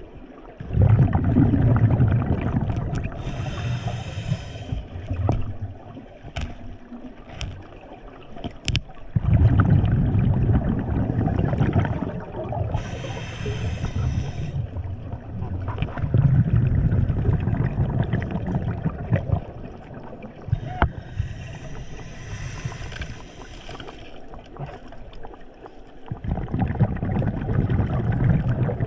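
Scuba diver breathing underwater through a regulator: three hissing inhales, each alternating with a long gurgling rush of exhaled bubbles.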